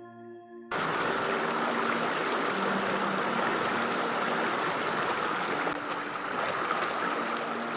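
Shallow mountain stream rushing and splashing over rocks, a steady flow of water noise. It drops out for a moment right at the start.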